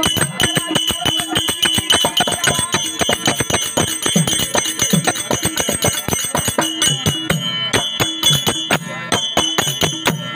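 Therukoothu accompaniment: fast, steady strokes on a pair of hand drums with small hand cymbals (jalra) ringing on the beat, over a steady held drone.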